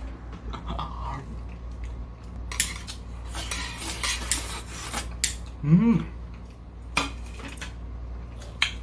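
Metal chopsticks scraping and clinking against a ceramic plate as the last food is raked off the tilted plate into the mouth, with a quick run of clicks in the middle. A brief voice sound comes about six seconds in.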